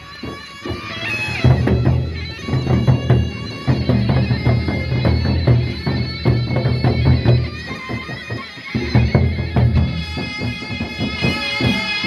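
Sasak gendang beleq ensemble playing on the march: the big double-headed drums beat a heavy low pulse under a steady, sustained melody line, with lots of sharp percussion strokes. The drum pulse drops out briefly near the start and again about three quarters through.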